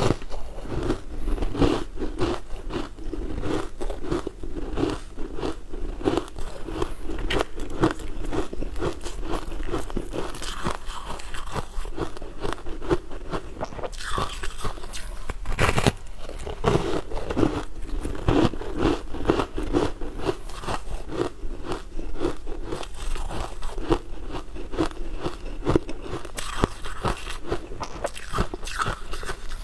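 Crunching and chewing of refrozen ice coated in matcha powder: repeated bites into a slab of ice, with a constant run of sharp crackles as the pieces are chewed.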